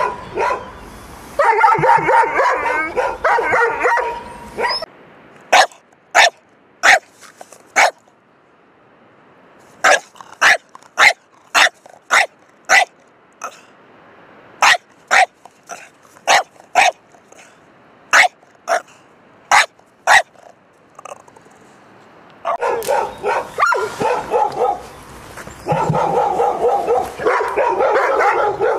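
Dogs barking: a large pale dog behind a chain-link fence barks rapidly, then come sharp single barks about two a second from a Boston terrier, and rapid barking from the dog at the fence returns near the end.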